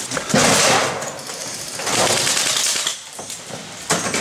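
Airsoft guns firing on full auto in rapid bursts: two bursts of about a second each, and a third starting near the end.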